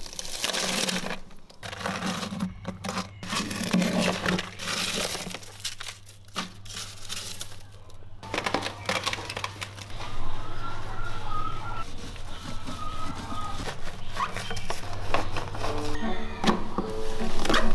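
Frost and ice in a refrigerator freezer compartment being broken up and scraped out by hand during defrosting: crunching, scratchy bursts over the first several seconds, then scattered clicks and knocks. Light background music plays underneath.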